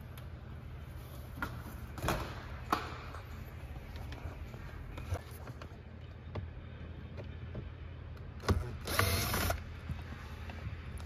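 Scattered clicks and knocks of car interior trim parts being worked loose, over a steady low hum, with a brief loud mechanical whirr about nine seconds in.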